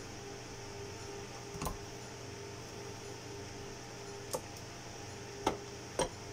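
Four short, sharp clicks of a thin metal pick against the syringe pump's plastic battery compartment as the stuck battery pack is pried out, three of them in the last two seconds, over a steady background hum.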